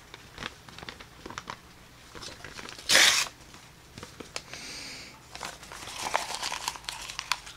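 A sheet of printed paper being handled, torn and crumpled by hand, with one loud tear about three seconds in. Near the end comes denser crinkling as the paper is pushed into the mouth.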